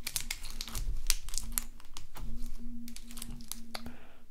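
Stiff clear slime squeezed and stretched between the hands, giving off irregular small clicks and crackles.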